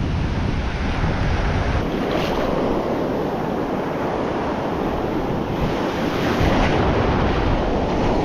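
Ocean surf washing and foaming around the feet in the shallows, with wind rumbling on the microphone.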